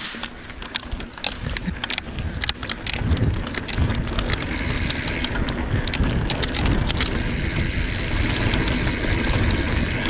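Mountain bike riding over a rough dirt trail: steady tyre and frame rumble, with many sharp irregular clicks and rattles as it goes over bumps, thickest in the middle.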